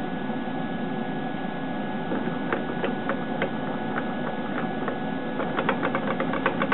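Homemade Gingery metal lathe running on its motor controller while the spindle is stepped round for indexing: a steady mechanical hum with a faint high whine, and irregular light clicks that come thicker near the end.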